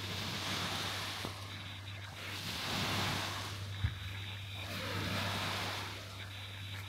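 Small waves breaking and washing onto a sandy beach; the surf swells and fades every couple of seconds. A brief low thump comes about halfway through.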